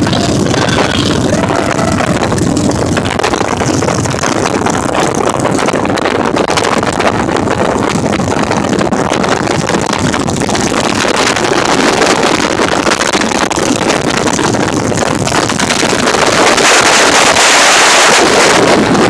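Wind buffeting the microphone on a moving motorcycle, over the running of motorcycle engines riding in a group. The wind noise swells near the end.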